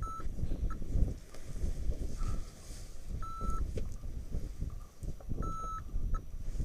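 Hang-gliding variometer giving a few short, high steady beeps, over constant wind rumble buffeting the microphone.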